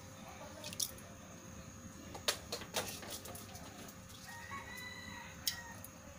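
Faint chickens in the background, with a rooster's crow of about a second near the end, over a low steady hum. A few sharp clicks or knocks are heard along the way, the loudest about two seconds in and near the end.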